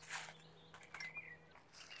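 Aluminium-foil food packet crinkling and scraping as it is lifted on a metal blade into a metal camp plate, a sharp rustle just after the start and another near the end, with light clicks. A bird chirps briefly about a second in.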